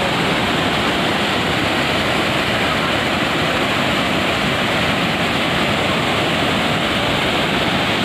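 A large waterfall and the rocky cascades below it, falling water making a loud, steady rush.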